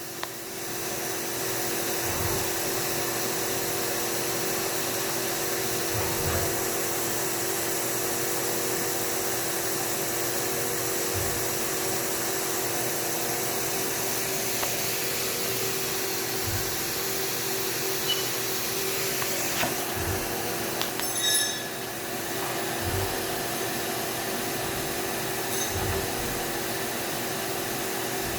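Haas five-axis CNC mill running a machining program: a steady hum and hiss, with a low thud every few seconds and a few short clicks about three quarters of the way through.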